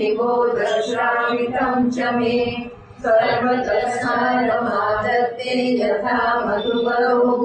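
A woman chanting verses in a sung, melodic recitation, holding long notes, with a brief breath pause about three seconds in.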